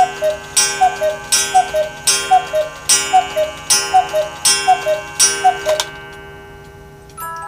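Black Forest 8-day cuckoo clock calling the hour: a falling two-note "cu-ckoo" from its bellows pipes, each call paired with a ringing strike, about seven times at an even pace, stopping about six seconds in. Just before the end, the clock's music box starts a tune.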